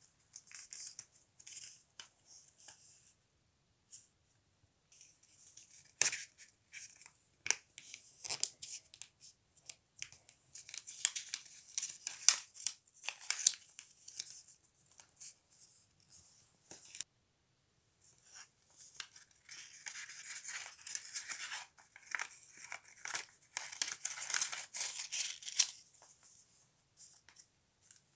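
A sheet of paper being folded by hand: rustling and crinkling, with short sharp scrapes as creases are pressed flat. It comes in busy bursts separated by brief quiet pauses.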